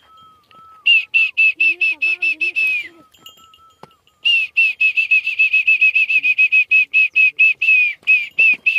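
Fast runs of short, high whistled notes, about six or seven a second, in three long runs with brief breaks between them. The last note of each run slides down in pitch.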